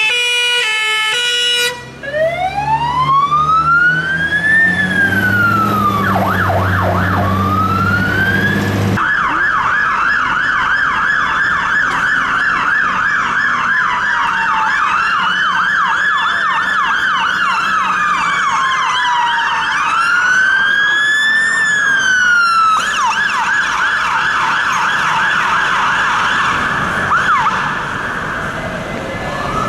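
UK fire engine sirens. A short alternating two-tone opens, then a slow wail rises and falls with a burst of rapid yelp over the low running of the truck's engine. After a cut, several appliances' sirens overlap, fast yelp against slow wail, until they ease off near the end.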